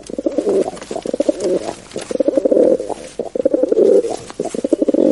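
Rock pigeon cooing in four low, rolling phrases, each about a second long.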